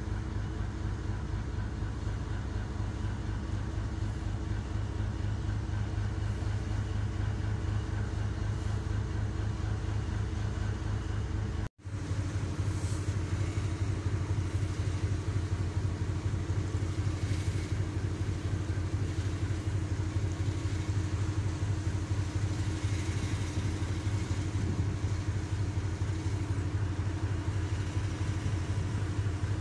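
Ship's engine running steadily with a low, even hum, heard on deck while under way, over a hiss of wind and wake water. The sound drops out for an instant about twelve seconds in, and the hiss is stronger after it.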